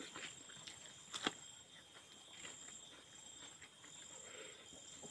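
Faint mouth sounds of a person chewing rice eaten by hand: soft smacks and small clicks, with one sharper click just over a second in. A steady high-pitched drone runs behind.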